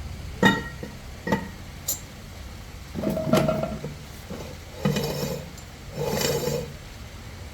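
Metal parts and tools being handled: three sharp, ringing metallic clinks in the first two seconds, then three longer stretches of clattering and scraping.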